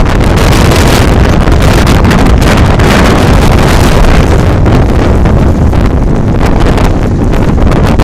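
Strong blizzard wind blasting the microphone: a loud, continuous rumble with hiss, surging in gusts.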